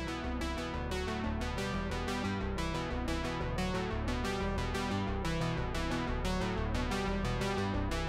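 Outro background music: synthesizer and electric-keyboard music, an even run of notes over a steady bass.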